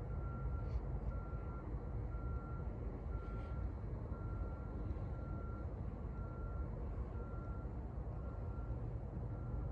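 An electronic warning beeper repeating one steady-pitched beep about 1.3 times a second, over a steady low rumble.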